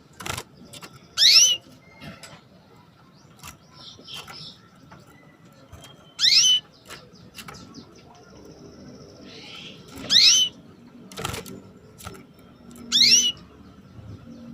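Female canary giving four short, steeply rising 'cuit' calls a few seconds apart: the call a hen uses to draw a male into singing. A few sharp clicks fall between the calls.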